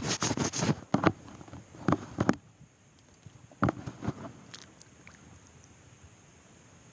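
Handling noises: a quick run of clicks, knocks and scrapes in the first two seconds or so, a few more knocks about three and a half seconds in, then quiet.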